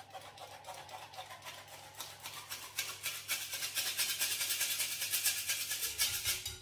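Stainless steel hand flour sifter worked over a mixing bowl, its mesh and handle scraping in quick, regular strokes as flour falls into the batter. The strokes grow louder about two seconds in.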